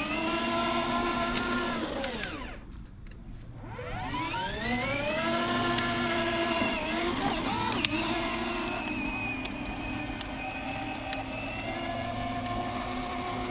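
Kids' electric ride-on car's twin 12-volt, 10,000 rpm motors and gearboxes whining under way on a fully charged 12-volt battery. The whine drops away as the car stops about two seconds in, rises again a second later as it pulls off, then holds steady.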